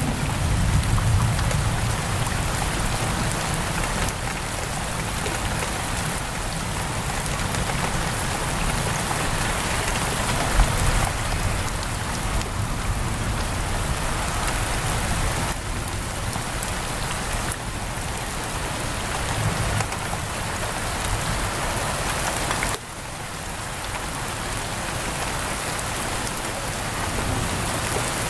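Heavy rain pouring steadily against a window, a dense even hiss, with a low rumble underneath that swells and fades a few times.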